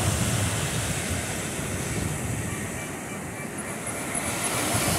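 Ocean surf breaking and washing onto a sandy beach, a steady rushing noise, with wind buffeting the microphone as a low rumble.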